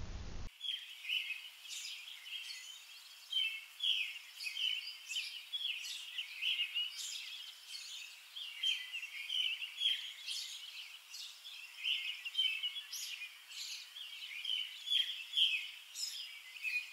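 Small birds chirping, a dense run of short overlapping calls.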